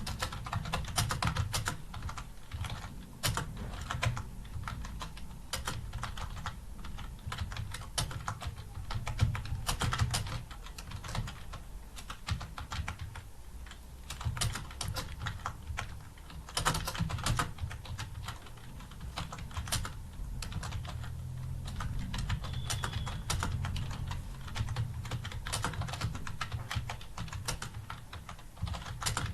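Continuous typing on a computer keyboard: a dense, unbroken run of key clicks as a passage is typed out at a steady pace.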